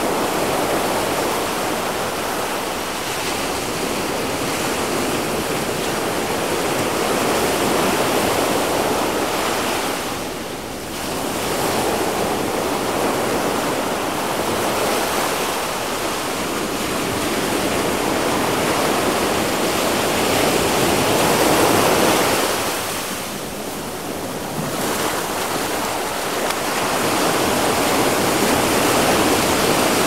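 Small sea waves breaking and washing up a sandy beach in a steady rush of surf, easing off briefly twice between waves.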